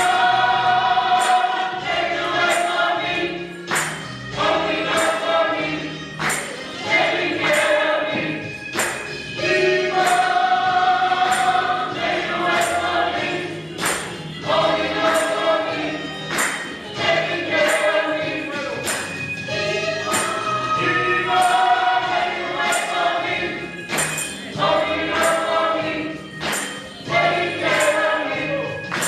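Gospel choir singing with music, over a steady beat of sharp percussive hits about four every three seconds.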